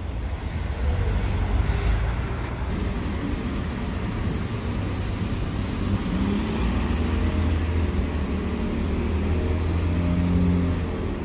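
City street traffic: car engines running and passing, over a steady low rumble.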